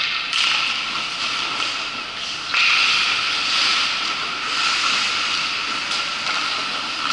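Steady hissing background noise of an indoor ice rink during a hockey game, with skates scraping on the ice; it turns louder suddenly about two and a half seconds in.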